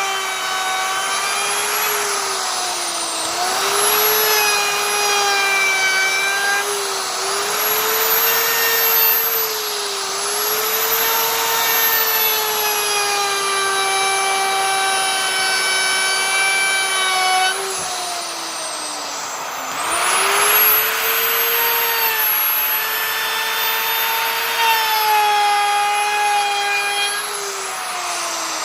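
Electric wood router running and cutting wood: a steady high whine over a cutting hiss, its pitch sagging and recovering several times as the bit takes the load.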